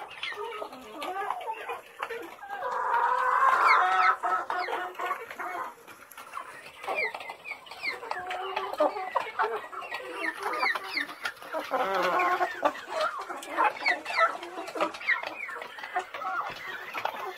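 Chickens clucking in quick, overlapping short calls, with a longer, louder call about three seconds in and another about twelve seconds in.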